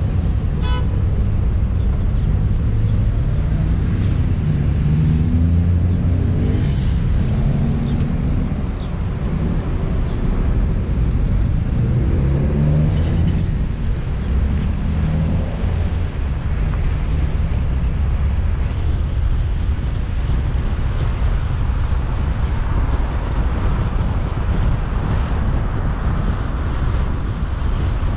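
A car driving, with a steady low engine and road rumble. The engine note climbs twice as the car accelerates, about four and twelve seconds in, and tyre and wind noise builds toward the end.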